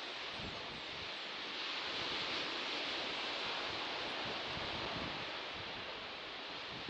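Sea surf: a steady wash of waves that swells a little in the middle and eases off again.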